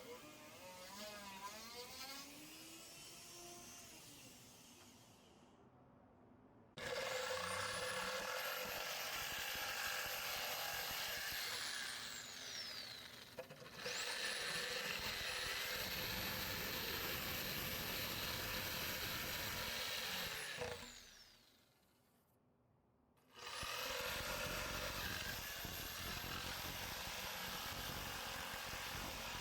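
Electric power tool running in three spells, each with a high motor whine that spins up at the start and winds down as it is switched off, with noisy grinding or cutting sound while it runs.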